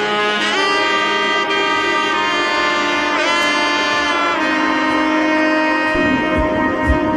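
Background music: held brass or saxophone-like notes with a pitch bend partway through, and a drum beat coming in near the end.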